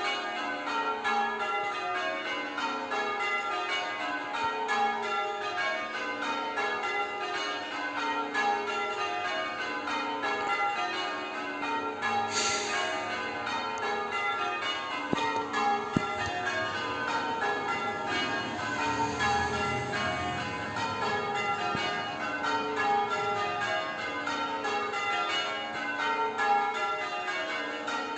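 Church bells change ringing: a ring of tower bells struck one after another in a fast, even rhythm, the strikes overlapping as each bell rings on.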